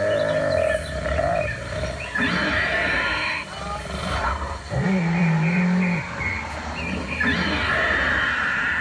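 Recorded dinosaur roars and growls played from an animatronic dinosaur's loudspeaker as it moves its head and jaws, several separate calls of a second or more each.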